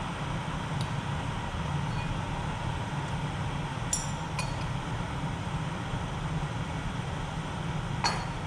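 Jetboil stove burner running steadily on its gas canister, a constant rushing noise, with a few small metallic clinks at about 4 and 8 seconds in.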